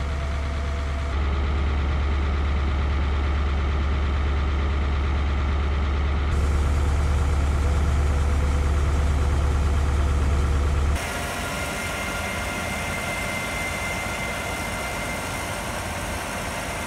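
Claas Lexion 750 combine harvester running steadily while cutting rice, with a strong low hum. The sound shifts abruptly about a second in and again around six seconds, and the low hum drops away about eleven seconds in, leaving a lighter steady machine hum.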